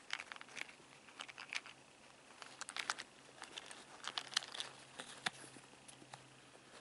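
Handling noise from a small plastic toy cable car: scattered faint clicks and rustles as its yellow cable and hook are twisted and pulled loose.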